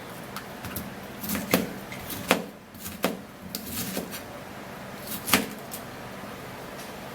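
Knife cutting pineapple, with a few separate knocks of the blade through the fruit onto the surface below.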